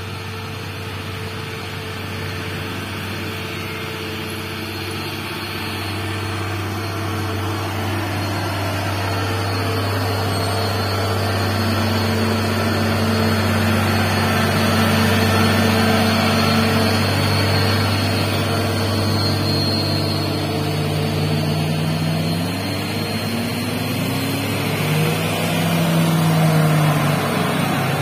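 Heavy diesel truck engine pulling in low gear, growing louder as the truck approaches and passes. Later, another engine's revs rise in pitch a few times.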